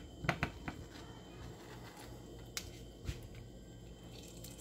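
A few light clicks and knocks from handling at the stove, several close together in the first second and two more single ones later, over a low steady hum.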